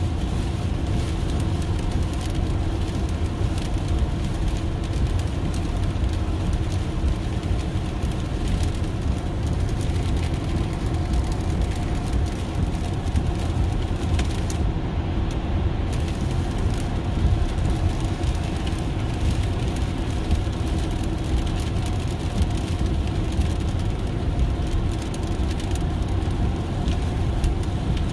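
Steady road and tyre noise inside an electric Tesla's cabin while driving on a rain-soaked highway: a constant low rushing with the hiss of wet tyres and faint crackling.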